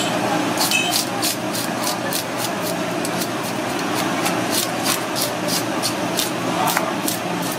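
Metal fish scaler scraping the scales off a fresh snapper in quick, rhythmic strokes, about three or four a second, each a short raspy scrape. Steady background noise runs underneath.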